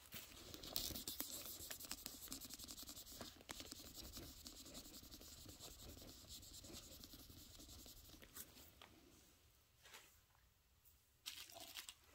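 Faint, fast scratchy rubbing as a white wipe is scrubbed across a small black jewelry testing stone, clearing off the scratch-test streak. The rubbing dies away about nine seconds in, followed by a few soft clicks.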